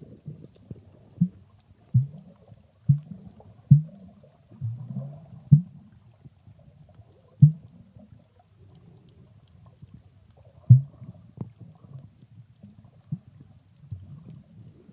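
Muffled sound of a camera under water: a low rumble of water moving past the camera, with irregular dull thuds, several in the first half and a few more later.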